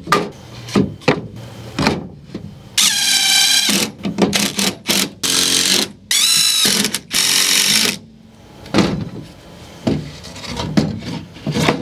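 Ryobi cordless drill driving screws into 2x4 lumber in four short runs in the middle, with wooden knocks as the boards are set down and handled at the start and near the end.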